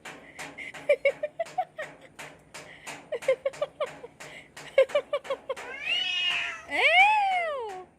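Cats caterwauling at each other in a standoff: runs of short clipped sounds, then two long drawn-out yowls near the end, the second rising then falling in pitch. Sharp clicks scattered throughout.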